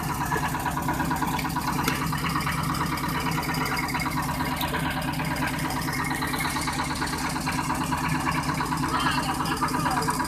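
Fishing boat's diesel engine running steadily, a low even drone with a fast regular pulse.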